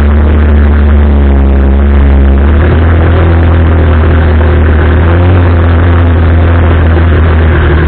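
The single-cylinder four-stroke engine of an Arora Herkul 200cc ATV running loudly and steadily, its pitch shifting a little as the throttle changes.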